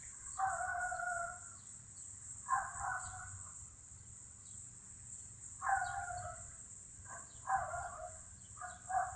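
A chicken calling again and again: about six pitched calls of up to a second each at uneven gaps, the later ones closer together. A steady high insect trill runs underneath.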